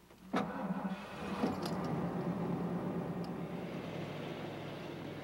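Full-size Ford pickup's engine comes in suddenly about a third of a second in and runs steadily as the truck pulls away, with a single clunk about a second and a half in. The sound slowly fades as the truck moves off.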